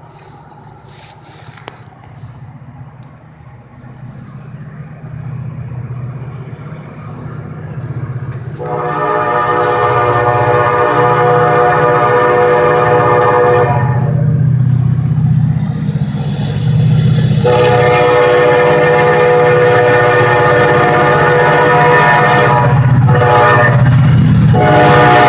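Approaching diesel locomotive, its engine rumble growing steadily louder, sounding two long blasts on its horn about a third of the way in and past the middle, with a third blast starting at the very end: the horn signal for the grade crossing.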